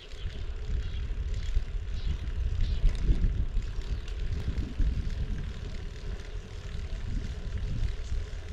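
Wind buffeting the microphone while riding a bicycle: an uneven low rumble that swells within the first second and keeps wavering.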